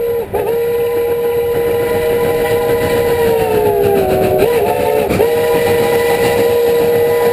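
A train whistle sounding a chord of several tones in one long blast. Its pitch sags for a moment and dips briefly a few times as it is worked.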